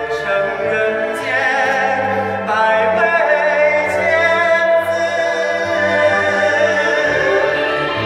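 A man singing a held, vibrato-laden melody, accompanied by a small Chinese traditional orchestra of plucked lutes such as pipa, with cello and double bass.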